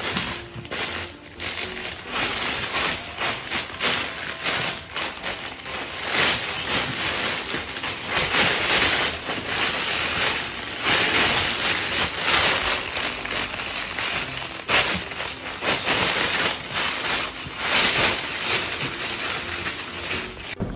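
Nylon fabric pop-up play tunnel rustling and crinkling as a small dog grabs it in its mouth, drags it about and burrows into it: a continuous run of irregular crackly scuffs.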